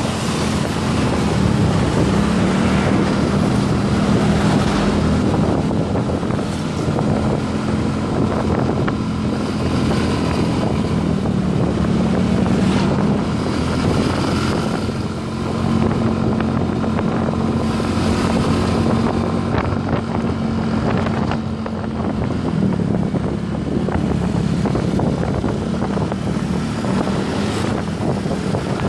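Motorcycle engine running at riding speed, its drone shifting a little in pitch with the throttle, under heavy wind noise on the microphone.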